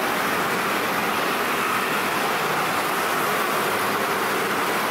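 Dense motor scooter traffic: the steady drone of many small scooter engines running together.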